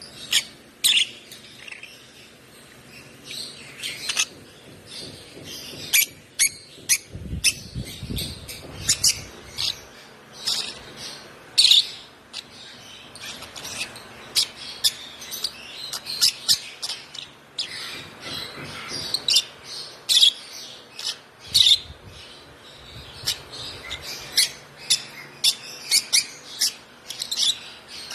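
One-month-old African lovebird chick chirping: short, sharp, high calls repeated irregularly, at times several in a second.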